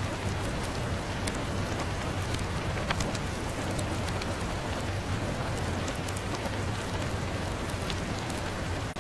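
Steady rain hiss mixed with a fireplace crackling, with scattered sharp little pops over an even wash of noise.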